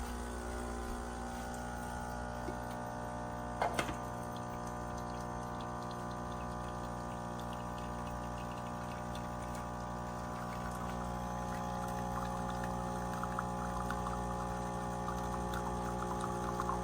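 De'Longhi La Specialista Arte espresso machine's pump running with a steady hum during brewing, with a brief clatter a few seconds in and liquid trickling through the second half.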